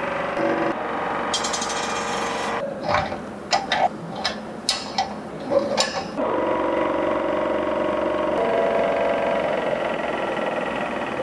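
Variable-speed scroll saw running steadily with its blade stroking. From about three to six seconds in come a series of sharp metallic clicks and knocks as the steel table is tilted and locked. Then the saw runs again, and its hum steps up in pitch about eight seconds in as the speed knob is turned up.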